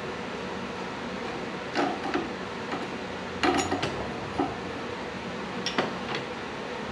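Wrench and steel parts clinking as the rear brake caliper bracket is unbolted from a 1980 Harley-Davidson FLT's swing arm: a few scattered short metallic clicks and clinks, the busiest run about halfway through.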